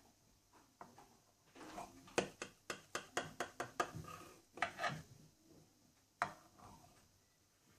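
Kitchen knife cutting through tiramisu, its blade clicking and scraping against the bottom of a white ceramic baking dish: a quick run of sharp ticks, about five a second, then a few scattered ones.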